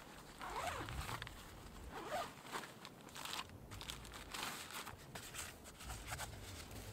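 Backpack being unpacked by hand: a zipper pulled open and nylon fabric and stuff sacks rustling in irregular scratchy bursts as gear is taken out.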